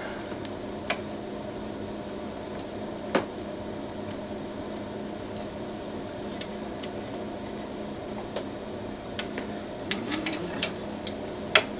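Small scattered clicks and taps from hand-starting nylock nuts on the screws of a Prusa i3 MK3 heated bed, one sharper click about three seconds in and a cluster near the end, over a steady low hum.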